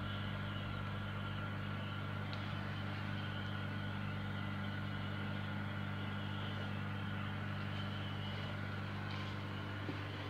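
Steady low electrical hum of an aquarium pump, with a faint hiss above it.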